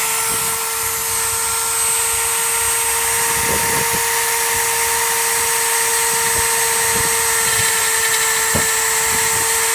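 Dremel rotary tool running steadily at high speed, a constant whine, its bit routing a slot through a clear plastic GoPro housing.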